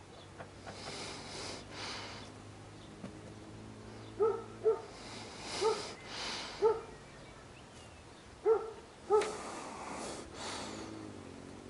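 Six short pitched animal calls, four close together and then two more a couple of seconds later, with breathy rushes of noise around them.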